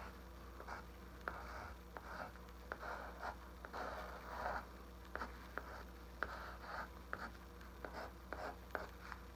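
Pencil drawing on a canvas board: faint, short scratching strokes as the lines are gone over again, one after another, with light ticks between them.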